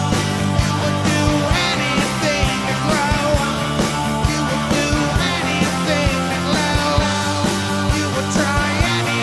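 Rock backing music: electric guitar over a steady drum beat, about two beats a second.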